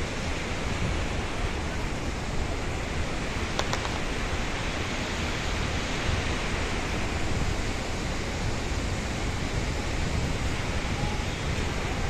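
Large waterfall: a steady, even rush of falling water with a low rumble underneath.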